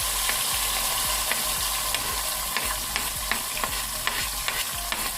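Tomatoes, hot pepper, onions and garlic sizzling in hot oil in a pan: a steady hiss with frequent sharp crackling pops, the sound of oil hot enough to fry the ingredients well.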